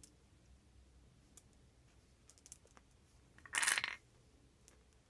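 Glass mancala stones clicking now and then as they are dropped into the pits of a wooden board. A short, louder clatter of stones comes about three and a half seconds in.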